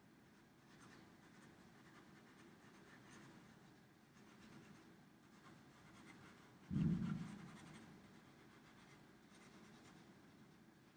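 Sharpie marker tip scratching and dabbing short strokes on drawing paper, faint. A single dull thump a little past the middle is the loudest sound.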